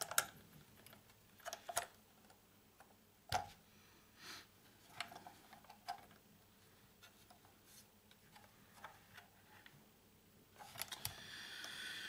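Scattered small clicks and taps from fingers handling small metal parts inside an old Bakelite antenna-rotor control box, with one sharper knock about a third of the way in and a short scraping rustle near the end.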